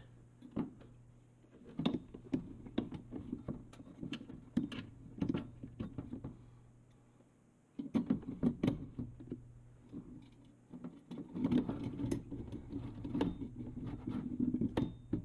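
Phillips screwdriver turning small screws into the sheet-metal bracket of a gas oven igniter: bursts of light metallic clicks and scraping, with a pause of a couple of seconds in the middle.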